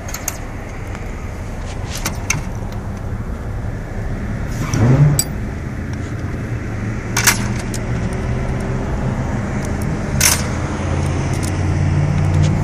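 A steady low mechanical hum, growing louder near the end, with a few sharp metallic clinks.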